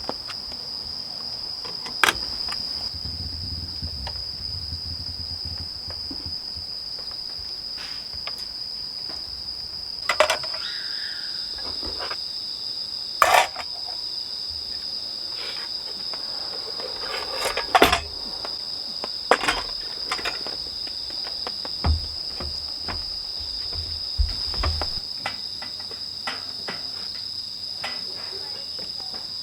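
A chorus of crickets trilling on one steady high pitch, with a handful of sharp clicks and knocks scattered over it.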